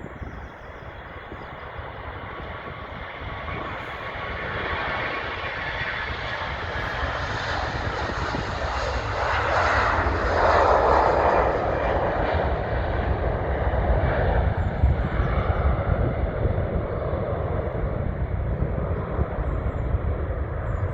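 Airliner's engines passing close by: the sound swells steadily, is loudest about halfway through and then carries on as a heavy low rumble.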